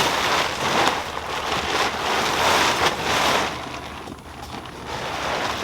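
Wind buffeting the microphone, a rushing noise that swells in gusts and eases off for a moment near the end.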